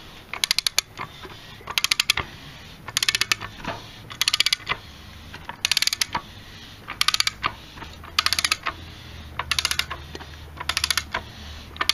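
Ratchet wrench clicking in short quick runs about every second and a quarter as the crankshaft of a Datsun L16 engine is turned over by hand, the ratchet swinging back between strokes.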